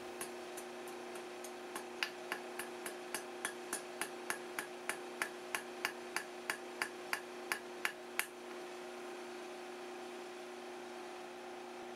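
Light, evenly paced hammer blows on a hot quarter-inch steel rod against an anvil face, about three a second, stopping about eight seconds in. A steady low hum runs underneath.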